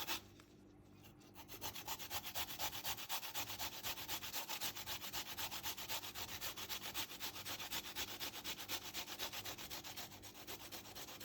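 Fresh turmeric root being grated: quick, even scraping strokes of the root against a grater, several a second, starting after a second or so of quiet and easing briefly near the end.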